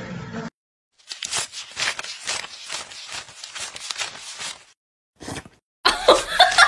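Paper banknotes being flicked through rapidly by hand: a quick run of crisp rustling clicks that starts about a second in and stops a little before the five-second mark. Near the end a fast, rhythmic train of pitched, voice-like pulses begins, about five a second.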